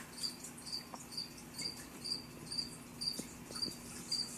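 Live feeder crickets chirping, short high chirps repeating at about two a second.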